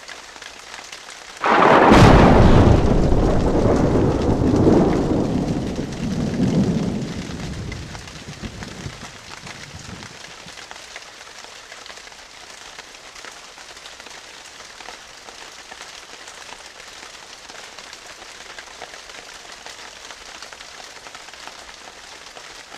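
Steady rain with a loud thunderclap about a second and a half in: a sharp crack, then a rolling rumble that swells a couple of times and dies away over several seconds, leaving the rain.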